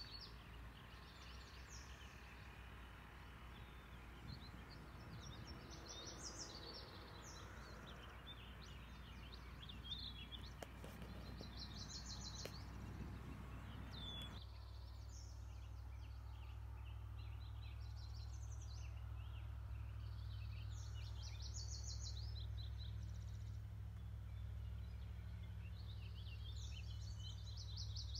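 Songbirds singing short, high, trilled phrases every few seconds over a faint, steady low background noise.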